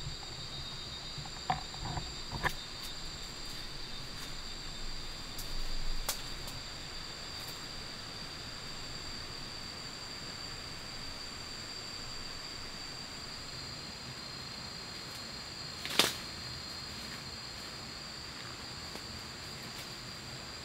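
Steady, high-pitched drone of tropical forest insects, with a few sharp snaps breaking through, the loudest about two-thirds of the way in.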